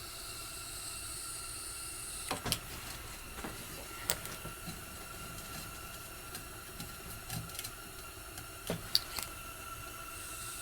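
Faint steady hum with a few short, light clicks and taps, the sounds of hand work during layout.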